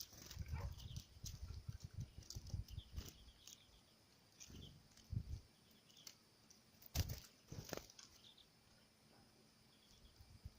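Birds at a feeder pecking: irregular faint taps and knocks, with two sharper strikes about seven seconds in, and short high chirps now and then.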